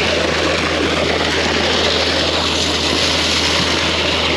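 Concrete-pouring machinery running during a footer pour: a steady, unbroken engine drone with a constant low hum and a noisy rush over it.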